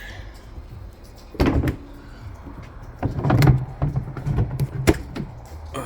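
Cowling of a Honda 115 hp outboard being unlatched and pulled off: a few clunks and rattles, about 1.5 s in, around 3 s and near 5 s, over a low steady hum.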